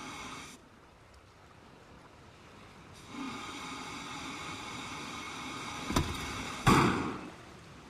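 A machine's steady humming drone, which breaks off briefly and starts again. Near the end comes a sharp click and then a loud burst as the machine puffs out black smoke.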